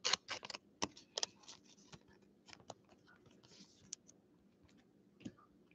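Trading cards and a clear plastic card sleeve being handled. Small clicks and rustles come quickly in the first second or so, then only scattered light ticks.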